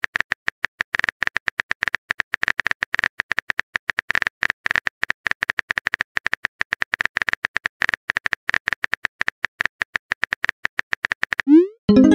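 Texting app's keyboard clicks, rapid and uneven, several a second, as a message is typed out. Near the end a short rising swoosh and chime as the message is sent.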